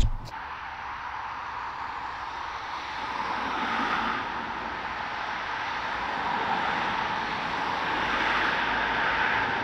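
A sharp knock at the very start, then passing road traffic: cars going by with steady tyre and engine noise that grows louder about three seconds in and holds.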